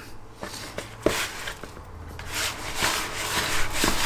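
Wet, 75%-hydration pizza dough being stirred in a bowl with a utensil: a single knock about a second in, then repeated scraping strokes from about two seconds in.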